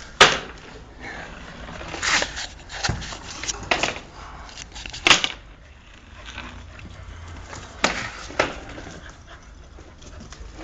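A dog barking in short, sharp bursts, about six times spread over ten seconds, with quieter stretches between.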